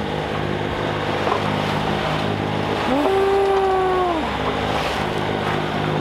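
Sailboat's engine running steadily as the boat motors through rough open sea, under a wash of wind and water noise. About halfway through, one long held note, rising into it and dropping away at the end, sounds over the engine.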